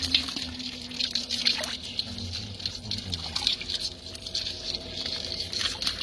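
Live crabs and fish shifting in a basin of water: a steady run of wet clicking and crackling, with small trickles and splashes.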